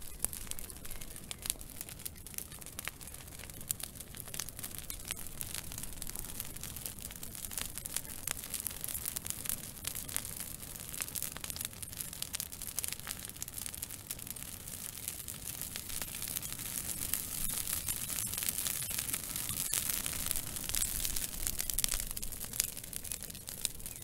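Twig fire burning: dense, irregular crackles and snaps over a steady hiss, growing a little busier and louder in the last several seconds.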